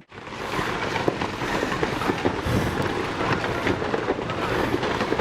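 Dense, irregular clatter of many small hard impacts, steady and without a rhythm.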